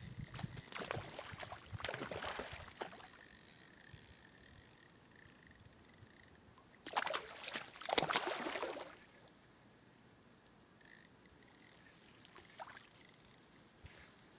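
Stream water splashing and sloshing in two irregular bursts, the louder one about seven seconds in.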